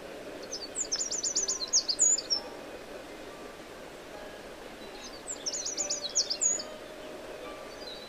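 Eurasian wren singing: two short bursts of rapid, high-pitched trilling notes, one about a second in and another about five seconds in.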